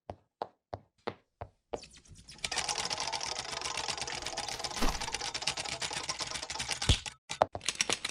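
A run of evenly spaced sharp clicks, about three a second, then several seconds of dense, rapid mechanical clicking and rattling with a few louder knocks.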